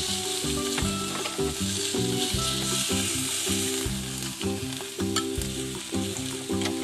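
Vegetables sizzling steadily on the plate of a Starfrit Rock electric smokeless grill, with a few sharp clicks of metal tongs against the plate as pieces are lifted off.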